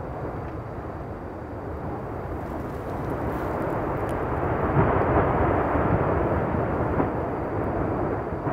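Lava fountain erupting from a volcanic cone: a continuous rushing rumble that swells over the first few seconds, with a couple of sharp pops, mixed with wind noise on the microphone.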